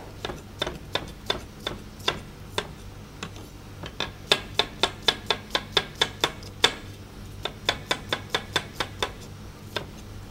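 Kitchen knife slicing onion on a cutting board: a run of sharp chopping knocks, about three a second at first and quickening to about four a second in the middle, with a short pause about seven seconds in and only a single knock near the end.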